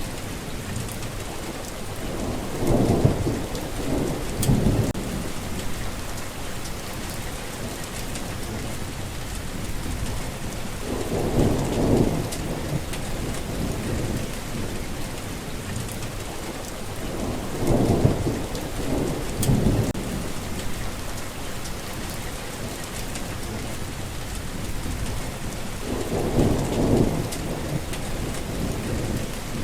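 Steady rain falling, with low rolls of thunder rumbling up and dying away four times.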